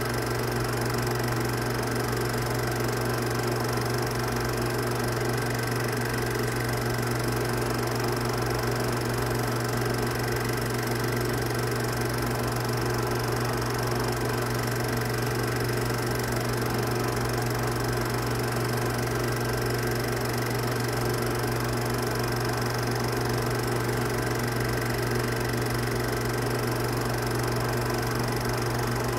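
Steady hum and whir of a film projector's motor running, unchanging throughout.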